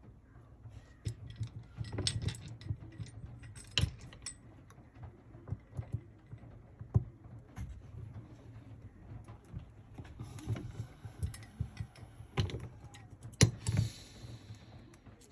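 Small plastic and metal RC truck parts (drive shaft, bearing and bearing carrier) clicking and tapping irregularly as they are handled and fitted together, with a brief rustling scrape near the end.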